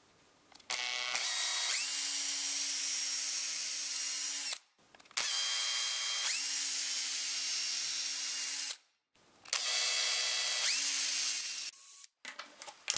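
Handheld electric drill boring into a wooden jig in three runs of a few seconds each, with successively larger bits. Each run opens with a whine that rises as the motor spins up, then holds steady, and cuts off sharply. A few light clicks come near the end.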